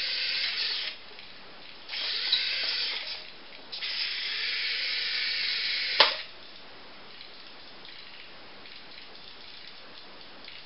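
The small electric drive motor and gears of a homemade radio-controlled model tractor, converted from a diecast Massey Ferguson 8680, whirring in three bursts as it drives. The last burst ends in a sharp click about six seconds in, after which the motor is quiet.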